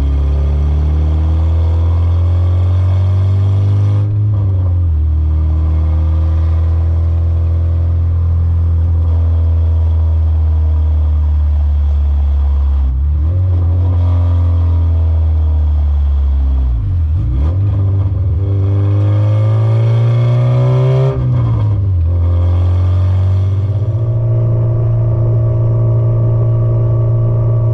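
Car engine pulling under acceleration on the road, its pitch climbing steadily and then dropping suddenly at gear changes, about four times.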